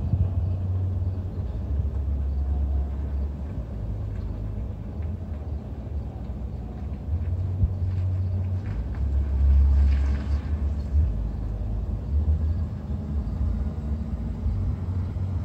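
Low rumble of a Ford F-450 Super Duty pickup driving slowly toward and past, swelling briefly about ten seconds in.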